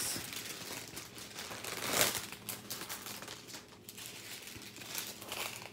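Clear plastic bags of diamond-painting drills crinkling as they are handled, with a louder rustle about two seconds in.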